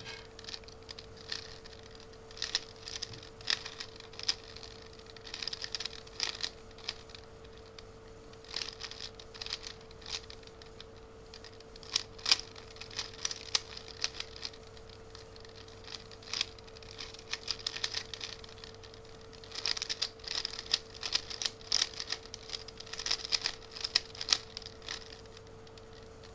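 Plastic 3x3 Rubik's cube being turned fast by hand: rapid clicking and clacking of the layers in flurries of turns, with short pauses between them.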